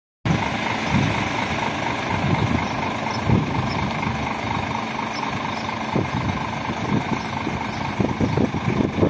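Scania R 450 tractor unit's diesel engine idling steadily, with irregular low buffeting, typical of wind on the microphone, over it.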